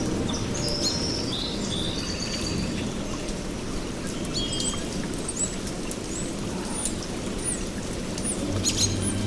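Steady rain with small birds chirping over it, in short sweeping notes that come more often in the second half. Low sustained music tones come back in near the end.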